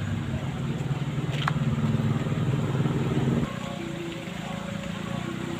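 An engine running with a steady low hum, louder for the first three and a half seconds, then dropping abruptly to a quieter hum. A single sharp click about one and a half seconds in.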